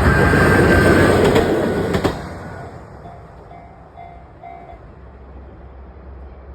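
Moka Railway train passing over a level crossing, its wheels clattering loudly for about two seconds before the sound drops off suddenly as the last car clears. The crossing's warning bell keeps ringing in a steady repeated ding about twice a second, then stops about five seconds in.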